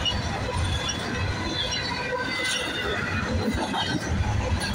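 Double-stack container freight train rolling past, a steady rumble of steel wheels on the rails with uneven low thumps and short, scattered high squeals from the wheels.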